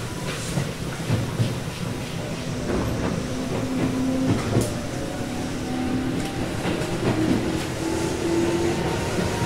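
Interior running sound of a Tobu 8000 series resistance-controlled electric train under way: the car's TM-63 traction motors hum with a faint whine that slowly rises in pitch, over wheel noise and the clicks of the wheels crossing rail joints.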